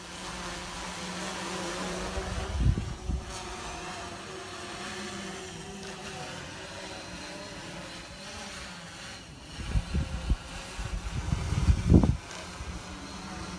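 Yuneec multirotor drone's rotors humming steadily as it hovers overhead, with a few low bumps, the loudest near the end.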